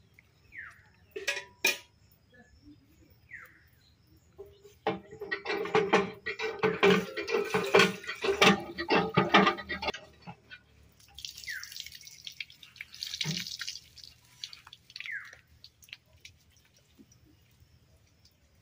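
Hand pump being worked: a couple of sharp metal knocks, then water gushing in spurts into a steel bucket for about five seconds, followed by fainter splashing.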